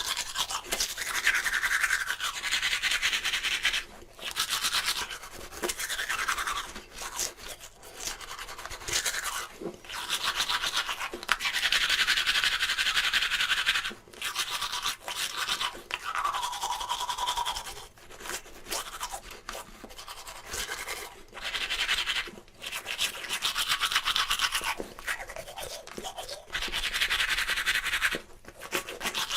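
Manual toothbrush scrubbing teeth in quick back-and-forth strokes, in bouts of a few seconds with short pauses between them, the pitch of the bristle noise shifting as the brush moves around the mouth.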